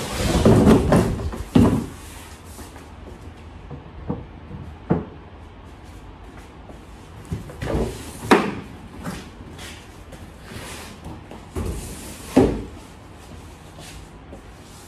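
A long cardboard flat-pack box being tipped up and shifted on a wooden floor: a rustling scrape of cardboard for about the first second and a half, then a series of separate knocks and thumps as it is moved and set down.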